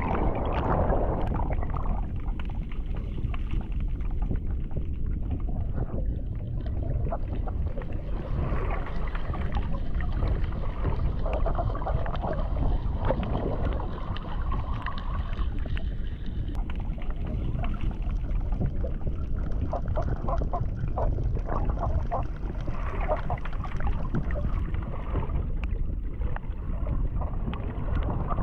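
Seawater sloshing and gurgling close around the microphone, muffled, over a steady low rumble of water movement.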